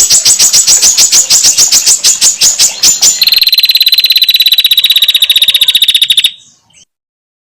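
Recorded calls of female prenjak (prinia) and sogon birds: a rapid series of sharp chattering notes, about eight a second. About three seconds in this changes to a faster, thinner trill of about fifteen notes a second, which cuts off abruptly about six seconds in.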